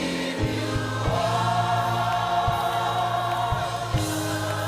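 Gospel choir singing long held notes over an instrumental backing.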